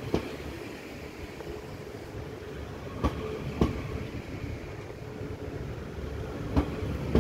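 NordWestBahn electric multiple unit rolling past: a steady rumble of wheels on rails, broken by sharp clacks as its wheels cross a rail joint, coming in pairs about half a second apart, a pair near the start, one about three seconds in and another near the end.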